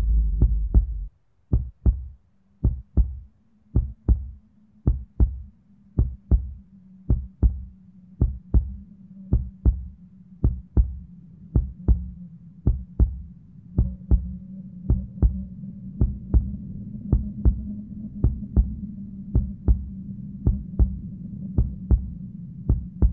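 Heartbeat sound effect: pairs of short, low thumps about once a second over a steady low drone, with a higher hum joining about halfway through.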